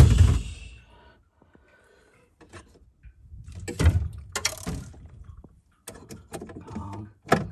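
Hard plastic knocks and clatter from bottles and the water-filter compartment inside a refrigerator being handled. A loud thump comes at the start, then a run of sharp knocks about four seconds in and more clicks near the end.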